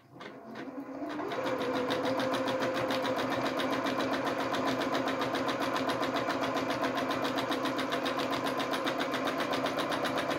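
Janome domestic sewing machine running for free-motion stitching, starting up and speeding up over the first second or so, then settling into a fast, steady stitching rhythm.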